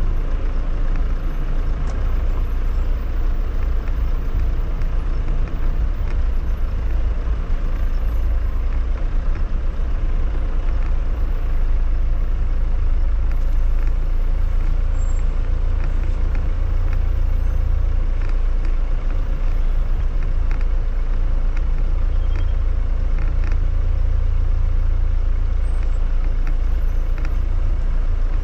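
Jeep 4x4 SUV driving slowly down a dirt off-road track: a steady low rumble of engine and tyres.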